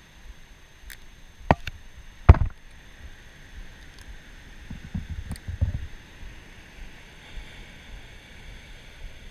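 A few sharp knocks, the loudest a little past two seconds in, then a cluster of dull thumps around five seconds, over a steady background hiss.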